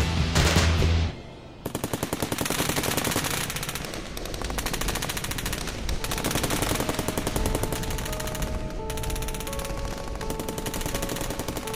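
Rapid automatic gunfire, a fast unbroken stream of shots starting about a second and a half in. A film score's held notes come in underneath about halfway through.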